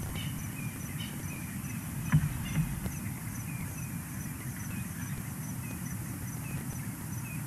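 Outdoor bush ambience: a steady low rumble with faint bird chirps repeating through it, and two soft knocks about two seconds in.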